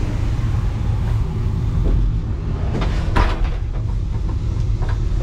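Steady low rumble of an SNCB M7 double-decker train running, heard from inside the carriage, with a few sharp clacks about three seconds in and another just before the end.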